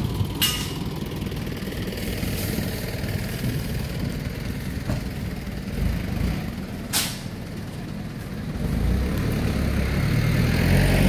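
Street traffic: a heavy vehicle's engine running, with two short hisses, one near the start and one about seven seconds in. Near the end an engine note builds and rises in pitch as a vehicle pulls away or passes close.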